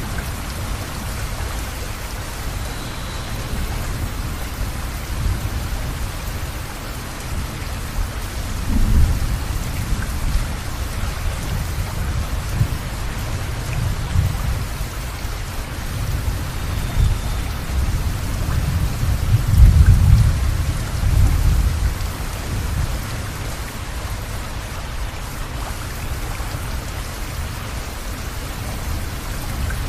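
Steady rain falling, with low rolling thunder rumbling several times; the loudest roll comes about two-thirds of the way through.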